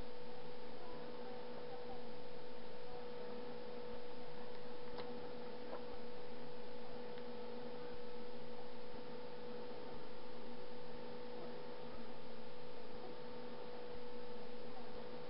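A steady electrical hum with one clear mid-pitched tone, its level stepping evenly up and down about once a second, with a couple of faint clicks about five and six seconds in.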